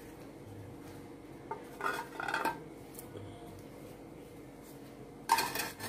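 Aluminium cake tin and kitchen utensils being handled, metal clinking: a few light knocks a little under two seconds in, then a louder clatter near the end.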